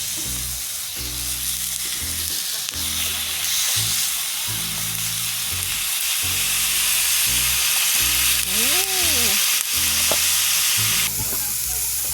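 Food sizzling and frying in a hot pan on a camp grill. The sizzle grows louder about three seconds in and eases near the end, with background music underneath.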